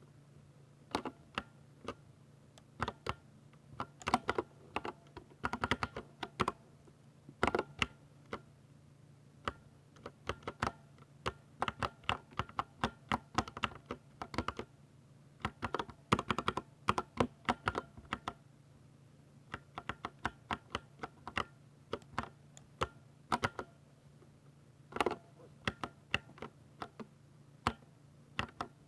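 Typing on a Ducky 60% mechanical keyboard with silver switches: irregular bursts of rapid keystrokes separated by short pauses.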